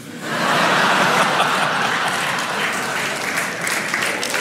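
Audience applauding, starting all at once and slowly easing off.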